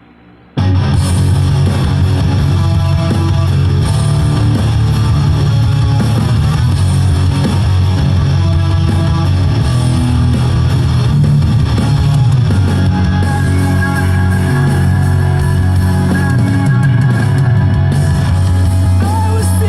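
Loud rock music with electric guitar and bass, starting abruptly about half a second in.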